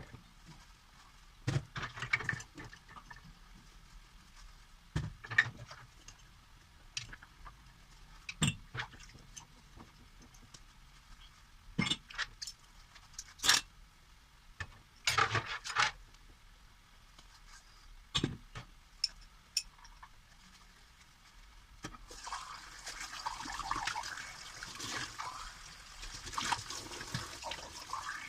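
Dishes knocking and clinking at a sink: scattered sharp clacks a second or more apart. About three quarters of the way through, a tap starts and water runs steadily onto the dishes.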